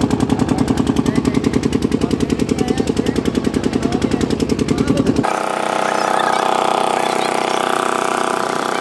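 Boat engine running with a rapid, even thumping. About five seconds in, the sound changes abruptly to a steadier, higher drone without the deep thump.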